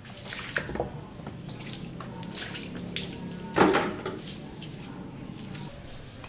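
Water dripping and splashing off a screen-printing screen just after its exposed emulsion stencil has been sprayed out. Scattered drips, with one louder splash about three and a half seconds in.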